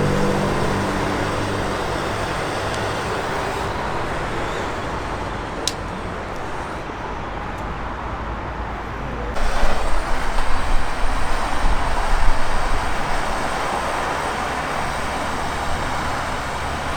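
Handheld gas blowtorch burning with a steady rushing noise while it heats a part. The rush grows louder and more uneven for a few seconds past the middle, and there is a single sharp click a little before that.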